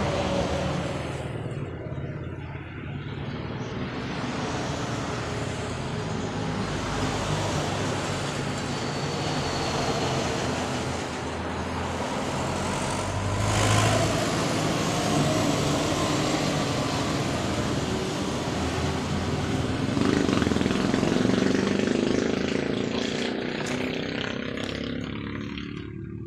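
Road traffic going past: vehicle engines and tyre noise, with one vehicle passing loudest about halfway through and another shortly after.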